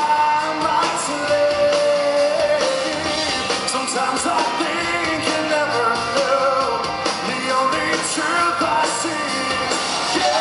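Live rock band playing, with a male lead singer singing over electric guitars, keyboards, bass and drums.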